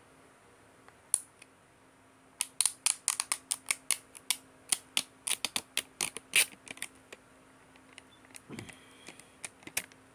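Fingers picking at and peeling back the sealed lid of a plastic dipping-sauce cup close to the microphone: a quick, irregular run of sharp crackling clicks, densest in the middle, with a few more near the end.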